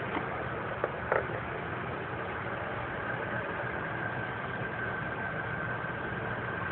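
2011 Dodge Journey engine idling steadily with a cylinder 2 misfire (code P0302), caused by low compression in that cylinder. A thin steady whine runs over the idle, with a couple of light clicks about a second in.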